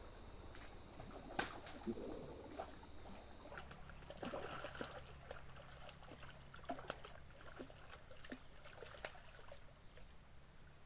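Faint water splashing and lapping with scattered small clicks and knocks, typical of handling fishing tackle at the water's edge.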